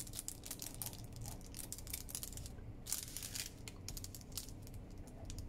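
Light crinkling and ticking of a folded parchment baking cup being handled and pressed flat while tacky glue is squeezed onto its flaps, with a slightly louder rustle about three seconds in.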